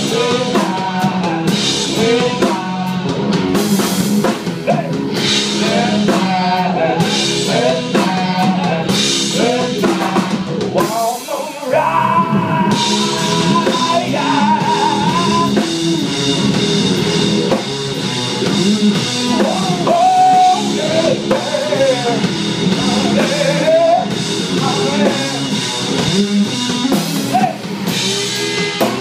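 A live blues-rock band plays loudly: electric guitar, bass guitar and drum kit with cymbals, and a male voice singing. The music briefly drops out about eleven seconds in, then the band comes back with a long held note.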